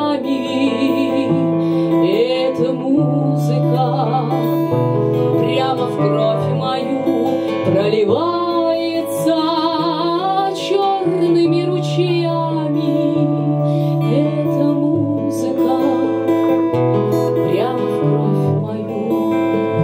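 Live acoustic band music: a strummed acoustic guitar with piano holding bass notes under a wavering melody line with vibrato. An instrumental stretch of the song, with no words sung.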